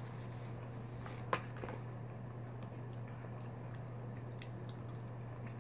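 Quiet eating and handling noises over a steady low hum: a fork picking at food in a plastic takeout tray and a napkin being handled, with one sharp click just over a second in.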